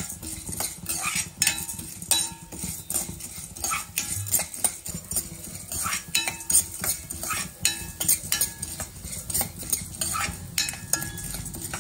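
Metal spoon stirring and scraping dry-roasting chana dal, urad dal, coriander and cumin seeds around a stainless steel pan: a steady run of irregular scrapes and clinks, without much sizzle, as the lentils are roasted until reddish.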